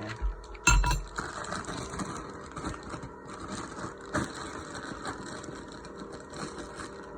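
Honda GX50 four-stroke engine on a Mantis tiller running steadily at idle, with one sharp clunk just under a second in.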